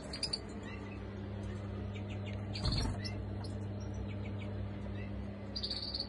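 Caged canaries and goldfinches chirping in short, scattered high calls over a steady low hum, with a brief low bump about halfway through.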